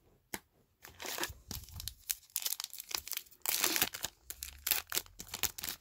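A trading-card pack wrapper crinkling and tearing as it is opened, mixed with cards being handled. The irregular crackles come thick and fast, densest about three and a half seconds in.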